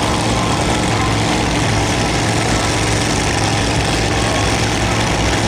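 Supercharged engine of a light modified pulling tractor idling steadily, without revving.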